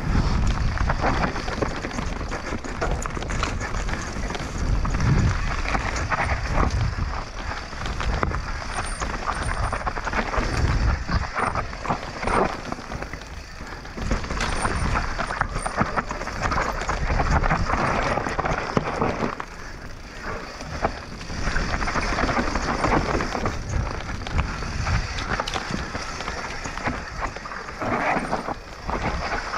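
Mountain bike descending a rough dirt trail: tyres rolling over dirt and stones, the bike rattling over bumps, with rushing noise that surges and eases.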